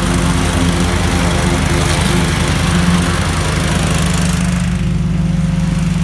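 Countax Rider 30-inch ride-on mower running steadily. About four and a half seconds in, the high hiss falls away, leaving the engine's low, even hum.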